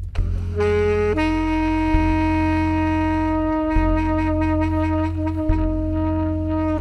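Baritone saxophone music: a short note, then a lower long-held note, over a low looped figure that repeats about every second and three-quarters.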